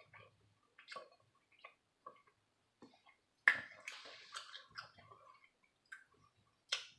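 Close-miked eating of quinoa and kale: scattered small wet mouth clicks and smacks from chewing. A louder, noisier stretch of chewing comes about three and a half seconds in.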